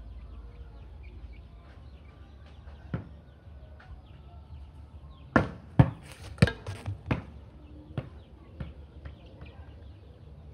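A volleyball being struck with the arms and hands during solo passing practice: sharp slaps, a quick run of several loud hits about halfway through, with single hits a few seconds before and after.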